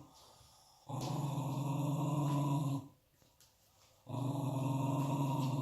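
Angry dog growling: two long, low, rattling growls of about two seconds each, the first starting just under a second in and the second about four seconds in, with a short pause between them.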